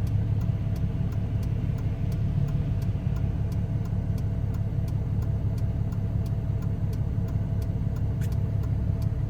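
Cummins turbodiesel truck engine running steadily at road speed under the load of a towed trailer, with a low rumble of engine and road noise heard from inside the cab. A faint, regular ticking of about three a second runs underneath.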